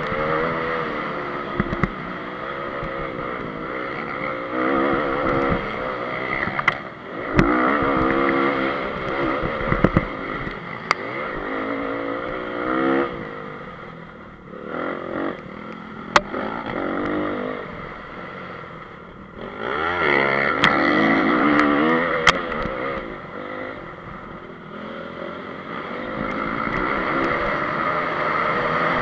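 Honda CRF250's single-cylinder four-stroke engine heard on board, revving up and falling back again and again as the throttle opens and closes through the track's straights and corners. A few sharp clicks cut through now and then.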